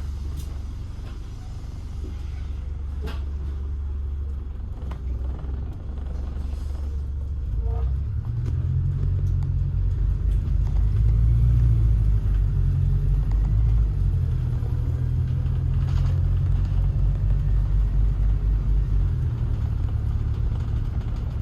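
Low rumble of a moving road vehicle, growing louder about eight seconds in and easing off near the end.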